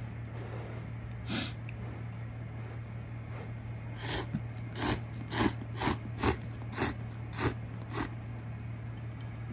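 Instant ramen noodles being slurped: one short slurp about a second in, then a quick run of about eight short slurps, roughly two a second, from about four seconds in. A steady low hum runs underneath.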